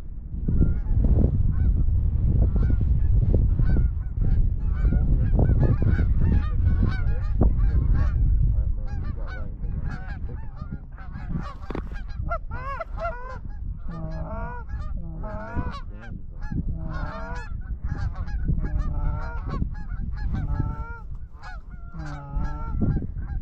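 A flock of Canada geese honking repeatedly as they circle in to land on decoys, many overlapping calls that thicken in the second half. A loud low rumble runs under the calls for about the first eight seconds.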